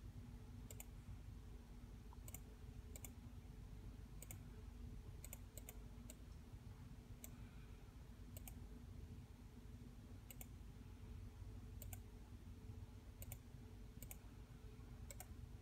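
Faint, irregular computer clicking, a little more than one click a second, as areas of an image are erased with a paint program's eraser tool. A low, steady hum runs underneath.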